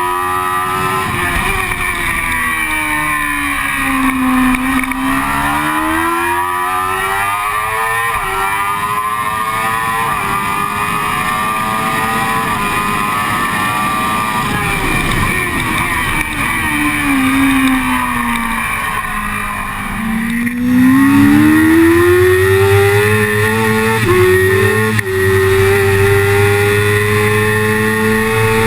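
On-board sound of a sport motorcycle's engine being ridden hard on a race track. The engine pitch climbs through the gears with quick upshifts, falls as the bike slows and downshifts about four seconds in and again around seventeen to twenty seconds, then climbs hard again with more upshifts near the end, over a rush of wind noise.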